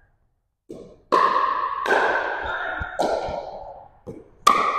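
Pickleball paddles hitting a hollow plastic ball in a rally: a series of sharp pops, about four loud ones with a couple of softer knocks between, each ringing on in the echo of a gymnasium.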